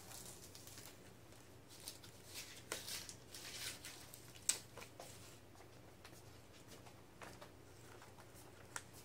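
Faint crackling and rustling of an adhesive paint stencil being peeled off a spray-painted pinball cabinet, with one sharp tick a little past the middle.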